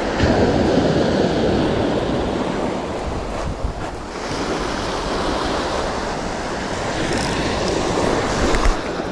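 Surf washing onto a beach, swelling and easing, with wind gusting across the microphone.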